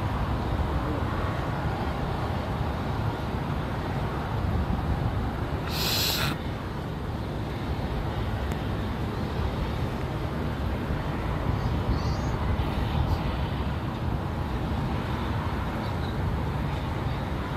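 Distant jet airliner engines, a steady low rumble, with a brief sharp hiss about six seconds in.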